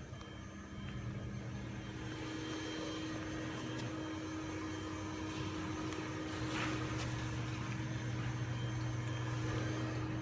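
Garage door openers running, their motors making a steady hum that slowly grows louder as the doors lift.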